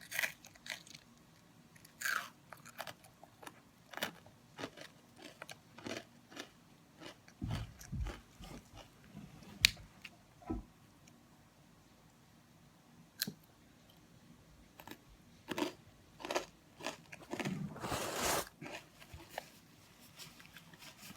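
A crisp fortune cookie being bitten and chewed: irregular, scattered crunches, sparser in the middle.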